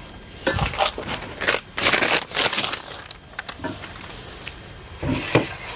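Plastic packaging crinkling and rustling in repeated bursts as rocket-motor propellant grains are unwrapped and handled, with a few short handling knocks.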